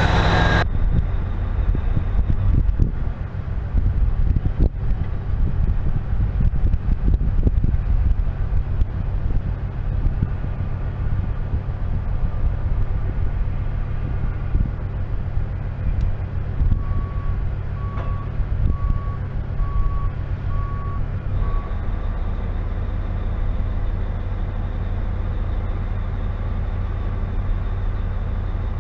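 Fishing boat's engine running steadily, a deep drone with scattered knocks over it early on. A little past halfway, a short run of about five evenly spaced high beeps sounds over the engine.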